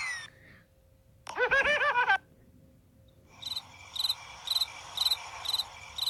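Cricket chirping sound effect: evenly spaced high chirps about twice a second over a faint hiss, starting a few seconds in. Before it comes a short, rapidly warbling pitched tone lasting under a second.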